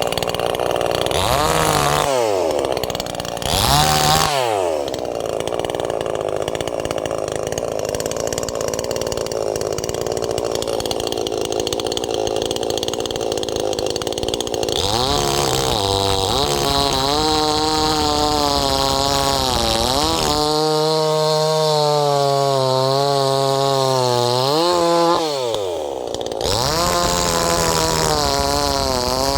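Two-stroke Zenoah chainsaw running on regular 25:1 gas-oil mix. It is revved up and down a few times in the first seconds, then held at high throttle while cutting, its note sagging and recovering under load, and revved again near the end.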